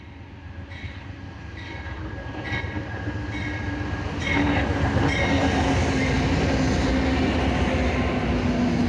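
Amtrak diesel passenger train approaching and passing close alongside the platform. It grows steadily louder until the locomotive goes by about four seconds in, then gives a steady engine hum over the rumble of the cars on the rails. A short ringing stroke repeats about once a second while it approaches.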